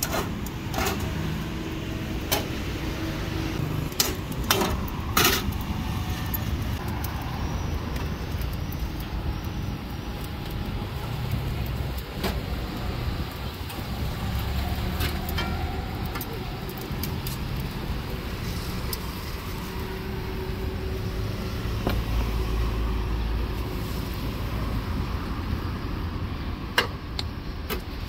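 Road traffic running steadily as a low rumble, with now and then a short sharp clink or knock.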